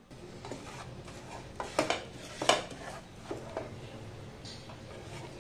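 A wooden spatula stirring and scraping sugar as it melts in a nonstick frying pan, with irregular knocks against the pan, the two loudest about two and two and a half seconds in. A steady low hum runs underneath.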